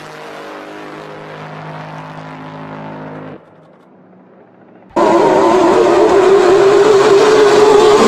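Racing speedboat engines at speed. A steady engine drone runs for about three seconds and stops suddenly. About five seconds in, a much louder, high-pitched engine whine starts abruptly and stays at near-constant pitch as a boat races past close by.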